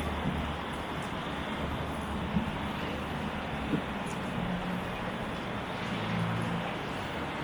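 Outdoor urban background: a steady hum of city traffic, with faint low voices coming and going and two brief clicks.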